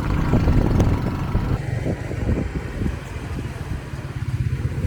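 Motorcycle taxi engine running steadily under way, a fast, even low pulsing.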